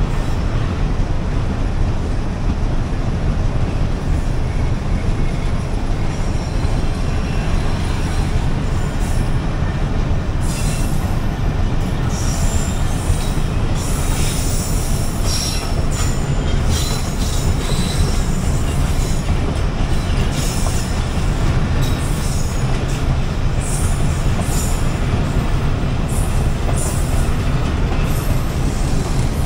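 Pakistan Railways passenger coaches rolling past at close range: a steady heavy rumble of wheels on rail. From about ten seconds in, short high metal squeals and screeches come from the wheels.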